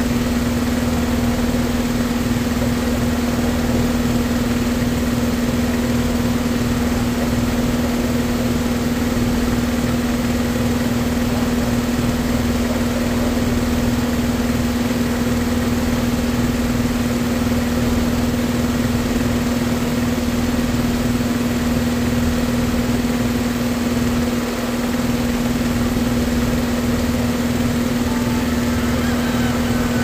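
Steady machine hum at one constant pitch, with no change in speed or level.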